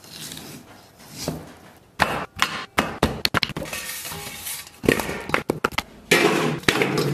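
Kitchen handling sounds: a cleaver slicing pork belly on a wooden chopping board, then a run of sharp metal clinks and knocks as a stainless steel bowl and a wok are handled and the wok is set down on a gas stove.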